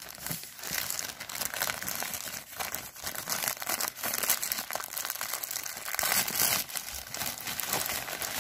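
Clear plastic bag crinkling and rustling continuously as hands handle and open it, full of small crackles.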